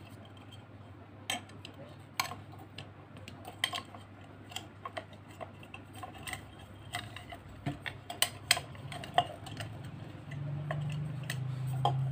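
Hands handling a metal desk-lamp shade and a ceramic lampholder while working the wire through, giving scattered light clicks and taps at an uneven pace. A low steady hum comes in near the end.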